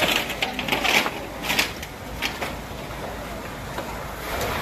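A large house fire crackling and popping, with several sharp pops in the first two seconds or so over a steady noise that carries on after them.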